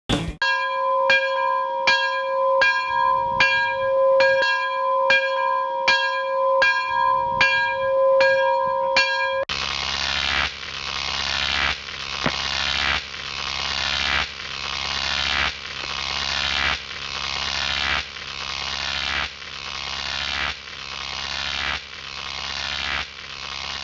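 Electronic intro sound effect: a bell-like tone pulsing in even beats a little more than once a second. About ten seconds in it changes to a hissing, swelling pulse over a low hum, repeating at the same pace, each swell building and then cutting off.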